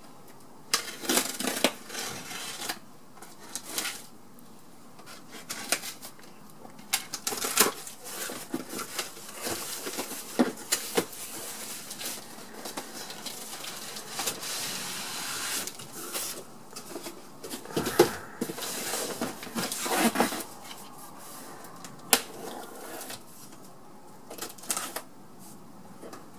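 Cardboard shipping box being handled and opened by hand: tape pulled off, flaps rustling, and the box knocked and set down, giving irregular rustles, scrapes and knocks. The loudest knock comes about two-thirds of the way in.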